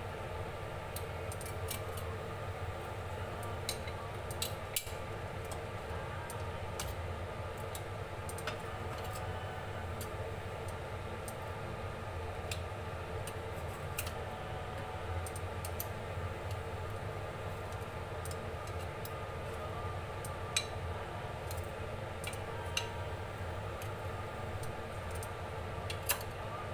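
Metal tongs clicking against mussel shells, the frying pan and a plate as cooked green mussels are picked out of the pan, at irregular moments over a steady hum and hiss.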